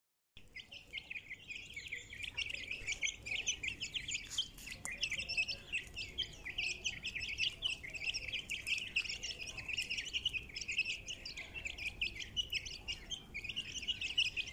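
A brood of young chicks peeping together: a dense, continuous stream of high, short cheeps overlapping one another, beginning about half a second in.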